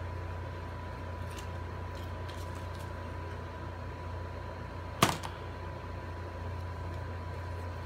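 A steady low room hum with a few faint ticks of paper being handled, and one sharp knock about five seconds in as a hot glue gun is set down on the table.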